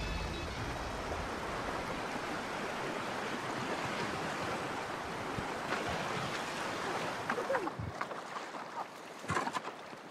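Rushing river water, a steady even noise that drops away about eight seconds in, followed by a few sharp clicks and knocks near the end.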